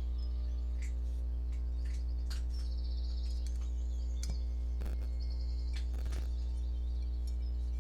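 A steady low hum, with faint high chirping and a few short clicks, two of them a little stronger about five and six seconds in.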